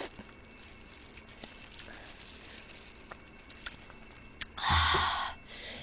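Close-up eating sounds of chicken feet being chewed and sucked: faint clicks and smacks, then near the end a loud breathy exhale through the mouth lasting under a second.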